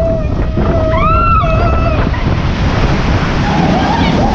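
Steady loud rushing of a log flume ride's water and wind across the microphone, with a drawn-out vocal cry about a second in and another near the end.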